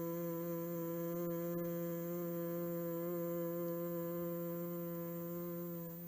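One long, steady hum on a single low pitch, made with the lips gently sealed and the tongue resting behind the upper teeth against the palate: the second phase of the Four Phases of Humming voice exercise. The hum is held out on the breath and stops at the very end.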